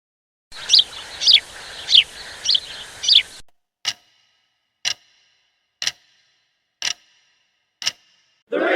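A recorded bird call: five short, sharp, high calls over a background hiss. It is followed by five clock-like ticks, about one a second, as a countdown timer. A loud burst of crowd shouting starts right at the end.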